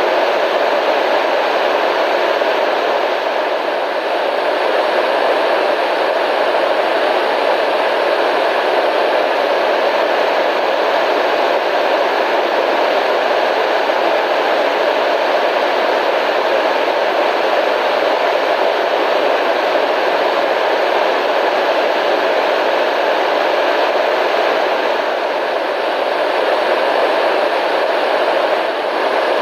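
Steady radio static: an even, continuous hiss, strongest in the middle and upper-middle range, with only slight dips in loudness.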